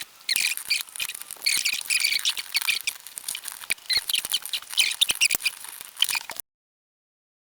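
Metal tool prying at a door handle's chrome escutcheon: rapid high-pitched squeaks and scraping clicks of metal on metal, cutting off suddenly about six seconds in.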